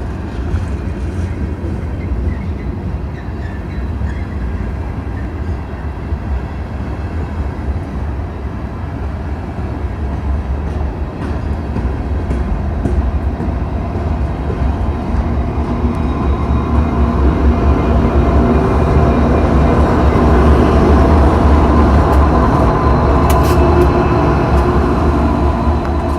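Union Pacific ballast train reversing slowly: a continuous rumble of the train rolling on the rails that grows louder after the middle. Thin steady tones build over it in the second half, and a few brief clicks come near the end.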